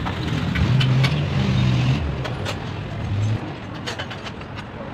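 Low rumble of another vehicle's engine, loudest in the first two seconds and fading after about three and a half seconds, with a few light metallic clicks and taps from hand work on the opened engine front.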